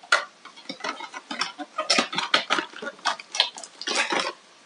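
Irregular clicks, taps and rustles of a USB cable and its packaging being handled.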